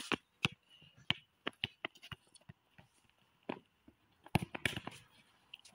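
Irregular short knocks of running footsteps and touches of a football being dribbled on dry dirt, a little denser near the end.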